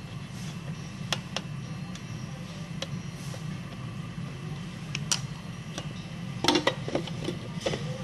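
Light clicks and taps of small parts and tools being handled during a motherboard replacement, scattered at first and then a quick run of them about six and a half seconds in, over a steady low hum.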